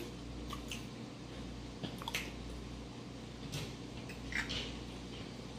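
Soft wet chewing and lip-smacking from people eating, a few short clicks spread through, over the low steady hum of a running dishwasher.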